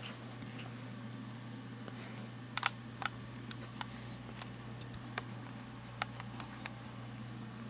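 A steady low hum with a scattering of small, sharp clicks, most of them between about two and a half and seven seconds in, the loudest near the start of that run.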